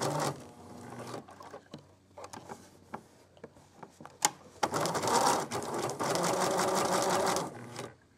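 Computerized sewing machine stitching in short runs: a brief run at the start, then a pause of a few seconds with scattered clicks while the fabric is pivoted at a corner. About three seconds of steady stitching follow and stop near the end.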